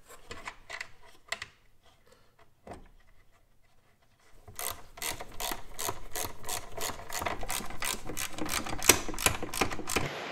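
Hand ratchet clicking quickly and evenly, about four clicks a second, from about four seconds in, as the nuts that hold the washer pump to the wiper motor are run down onto their studs. Before that, a few scattered light clicks of parts being handled.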